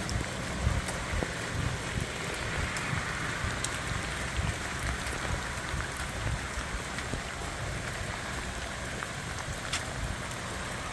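Steady rain falling, with scattered sharp taps of single drops.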